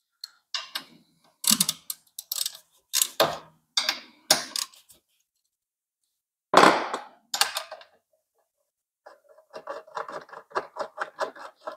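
Hand ratchet and socket undoing the motorcycle's 8 mm footrest hanger bolts: short metallic clicks and rasps in the first half, one sharper click partway through, then a quick run of ratchet clicks, about five a second, near the end.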